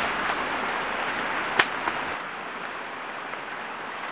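Steady rush of flowing river water, with one sharp crack about a second and a half in and a fainter one just after.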